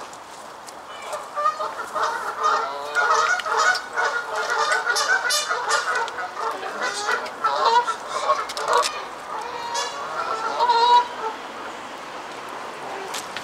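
A flock of geese honking, many short calls overlapping one another, dying away about two seconds before the end.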